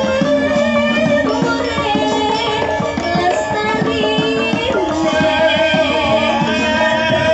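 Javanese gamelan in pelog tuning playing, with a female sinden's solo voice singing a wavering, gliding melody over it and rapid kendang drum strokes.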